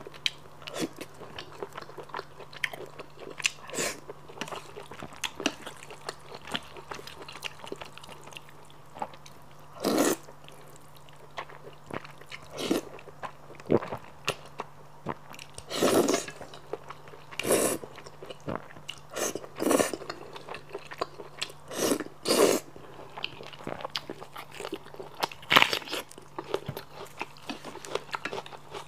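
Close-miked eating of spicy squid noodles: wet chewing with small smacks and clicks, and about ten short, loud slurps of noodles from the middle of the stretch onward. A faint steady low hum sits underneath.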